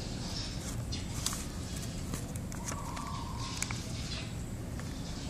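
Sheet of paper rustling and crinkling as it is folded and creased by hand, with scattered sharp little crackles, over a steady low background rumble.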